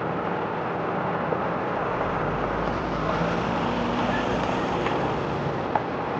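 Steady rushing rumble of a rockfall, with a few faint clicks of stones.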